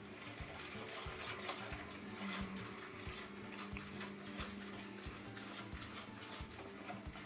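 A fork stirring a thick cream cheese and passion fruit mixture in a plastic mixing bowl, giving off faint, irregular clicks and scrapes against the bowl.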